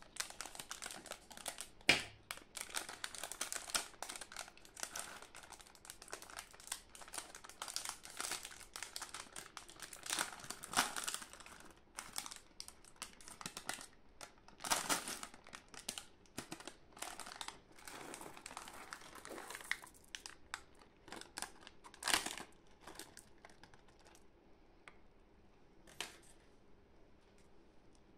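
Foil and plastic candy wrappers crinkling as gloved hands handle and tear open the packets. The rustling is dense with a few sharp snaps, then thins out after about twenty seconds into scattered small clicks.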